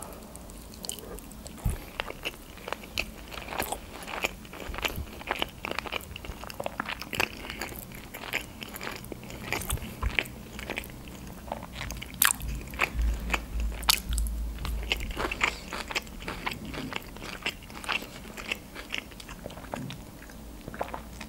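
Close-miked eating sounds of a bite of shrimp sushi roll being chewed: a dense, uneven run of small wet clicks and smacks. Near the end a sip from a glass.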